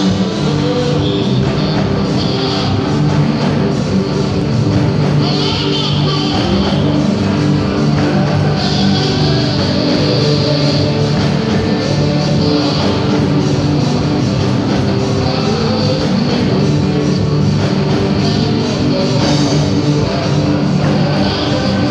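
Loud live church band music with drum kit and electric guitar and singing, on a steady, even dance beat.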